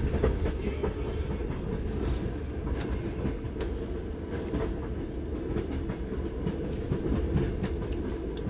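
Steady rumble of a moving Trans-Siberian passenger train heard from inside a third-class sleeper carriage, with scattered light clicks of the wheels over the rails.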